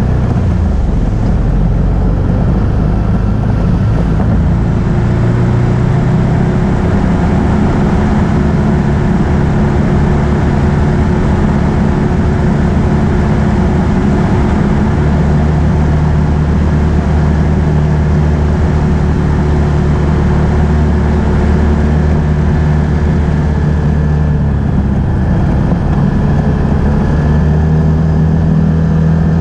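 Can-Am Outlander ATV engine running steadily under way, its pitch shifting up and down a few times, over a steady rush of noise.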